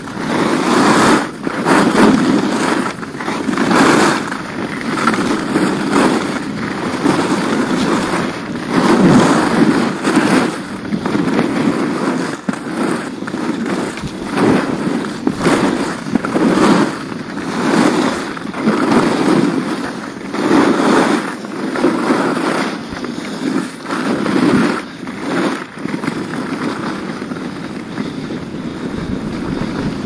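Skis carving and scraping over groomed, packed snow during a run of linked turns, the hiss swelling and fading about once a second with each turn.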